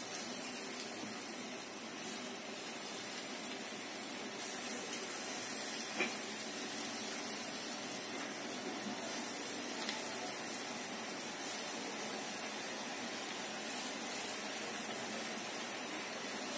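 Small dal-and-radish fritters deep-frying in hot oil: a steady sizzle, with a couple of faint clicks.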